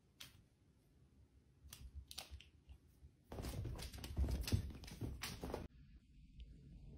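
Rustling and crinkling: a few sharp crackles, then a dense stretch of crackling lasting about two seconds that cuts off suddenly.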